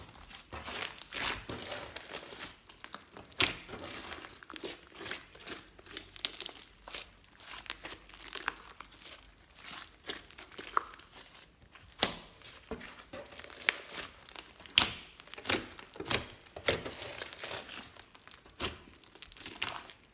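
Slime being squished and stretched by hand, giving a dense run of irregular sticky crackles with several sharper, louder pops.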